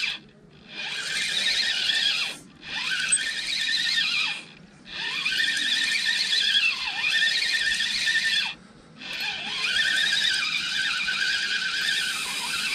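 Spinning reel on a feeder rod being cranked to retrieve braided line, giving a loud, high, wavering squeal in spells with brief breaks between them. The angler puts the squeal down to the braided line itself, not to an unlubricated reel.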